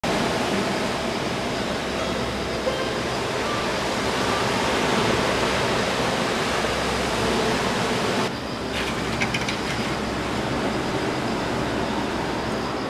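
Ocean waves crashing, a steady loud rush of surf. The hiss thins abruptly about eight seconds in.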